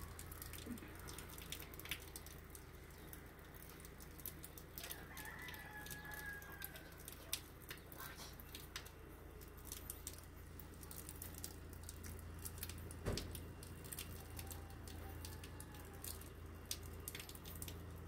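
A rooster crowing faintly, one long call that falls slightly in pitch about five seconds in, with a weaker call later on. Underneath are a low steady hum and scattered light clicks.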